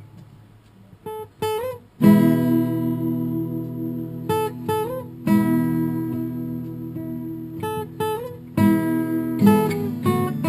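Acoustic guitar playing a riff. Short plucked notes that slide in pitch alternate with strummed chords that ring on, starting after a moment of quiet.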